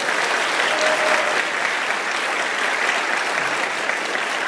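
Audience applauding steadily, clapping to welcome a speaker who has just been introduced.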